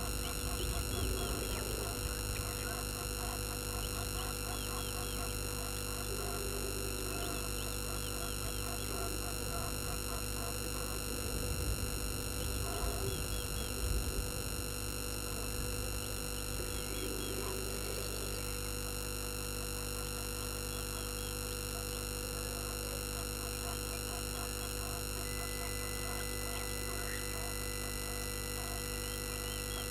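Steady electrical hum of many fixed tones on a live waterhole camera's audio feed, with faint, quick chirping of small animals behind it. A few low thumps come about twelve to fourteen seconds in, and a thin high tone joins near the end.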